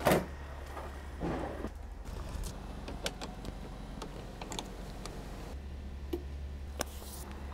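Scattered faint clicks and light knocks of battery support unit leads and clamps being handled and hooked up in a car's engine bay, over a low steady rumble.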